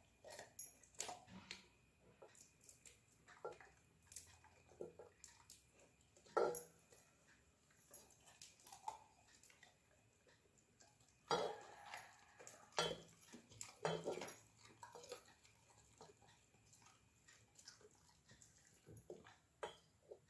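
Scattered soft crunches and clicks of cauliflower florets being cut and broken with a knife over a steel pot, along with a golden retriever chewing the cauliflower bits it picks off the floor. A louder run of crunches comes about eleven to fourteen seconds in.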